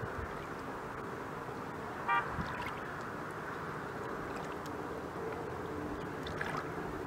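Steady outdoor background noise with a faint low hum, and one short high tone about two seconds in.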